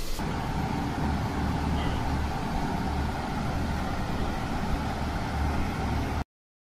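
Steady kitchen background noise: a low rumble with a faint steady hum, which cuts off abruptly about six seconds in.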